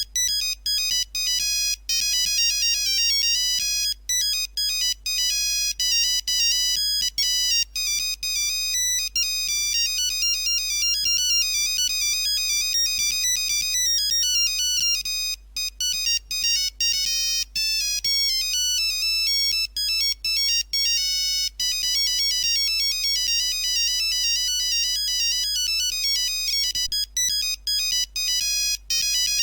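Nokia mobile phone ringtone playing: a fast, high-pitched electronic melody of short notes that runs on without a break.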